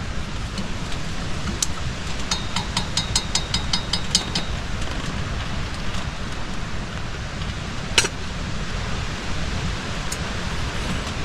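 A spoon stirring coffee in a cup, clinking against the rim in a quick run of about a dozen light ringing taps from about two seconds in, over a steady rushing noise of storm wind and rain. A single sharp knock comes about eight seconds in.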